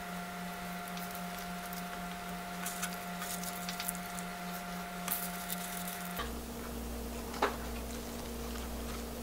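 Faint rustling and soft clicks of hands handling napa cabbage and perilla leaves wrapped around sliced pork, over a steady hum. The hum changes to a lower pitch about six seconds in, and a single soft tick follows as food is set into a pot.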